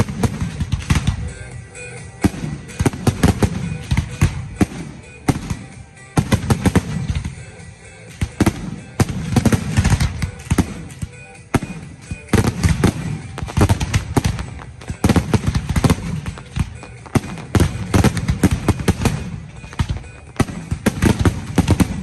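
Fireworks finale: aerial shells bursting in rapid, overlapping succession, deep booms mixed with sharp cracks and crackle. The barrage comes in dense waves every couple of seconds.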